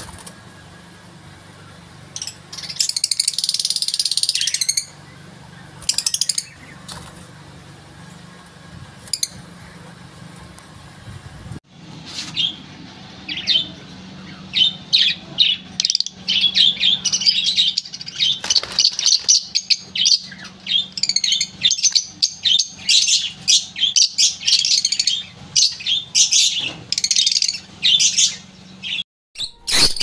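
Rosy-faced lovebirds chirping: a few short high calls in the first part, then a dense run of rapid, sharp chirps from about halfway on, over a steady low hum.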